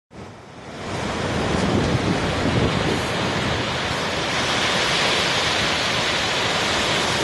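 Surf breaking and washing onto the beach: a steady rushing noise that builds over the first second and swells again about four to six seconds in.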